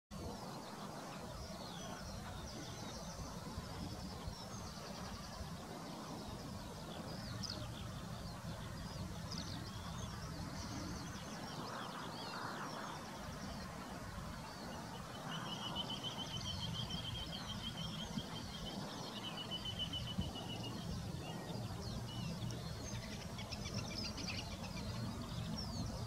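Wetland bird ambience: many short, high bird chirps and calls scattered throughout, with a rapid trill starting about fifteen seconds in and lasting some five seconds, over a steady low background rumble.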